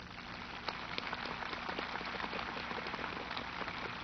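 Large audience applauding: a dense crackle of many hands clapping that builds over the first second and then holds steady.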